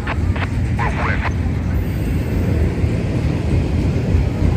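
Intermodal freight train rolling past: a steady low rumble, with a few short, sharp clicks and squeaks in the first second or so.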